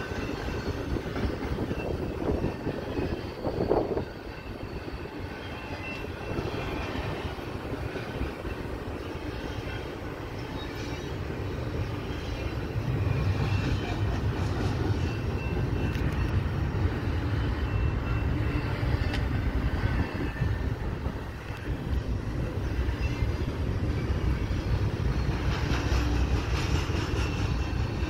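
Double-stack intermodal freight train rolling past a road crossing: the steady rumble of the container well cars on the rails, louder from about halfway through.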